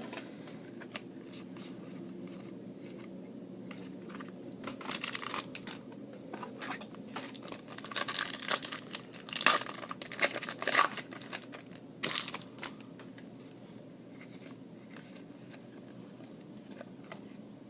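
A trading-card pack wrapper being torn open and crinkled: a run of short ripping and rustling sounds starting about four seconds in, loudest in the middle, and stopping a few seconds before the end.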